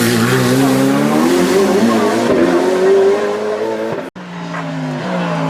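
Hillclimb race car engine under hard acceleration, its note rising steadily for about three seconds. The sound cuts out for a moment just after four seconds, then an engine note falls in pitch.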